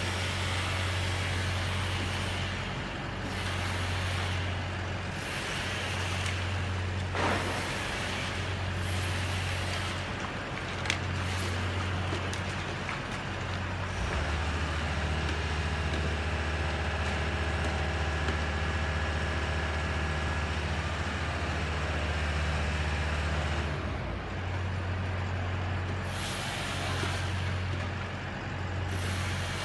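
Engine of a truck-mounted boom lift running with a low drone that swells and fades about every two seconds. For about ten seconds in the middle it holds one steady, lower note. Two small sharp knocks are heard, about seven and eleven seconds in.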